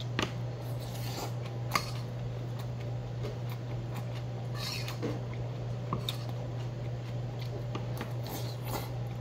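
Eating sounds: chewing mouthfuls of mixed rice, and a metal spoon clinking and scraping in a stainless steel bowl, with short clicks here and there. The sharpest clink comes about two seconds in. A steady low hum runs underneath.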